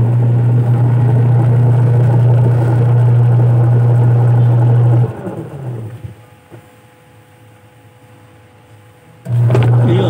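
Sharp twin-tub washing machine's wash motor humming as it drives the pulsator, cutting off about five seconds in and winding down with a falling pitch, then starting up again near the end: the wash cycle's run, pause and reverse. The motor turns weakly, a fault the repairer puts down to its capacitor.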